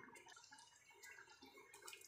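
Near silence, with faint scattered bubbling and popping from a pot of arroz valenciana simmering.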